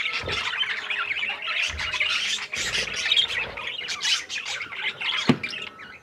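A flock of budgerigars chattering, a dense mix of warbles, chirps and squawks, with a few brief low thumps among it.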